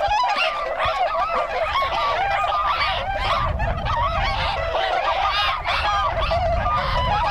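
A flock of Bewick's swans calling together, many honking calls overlapping in a continuous chorus.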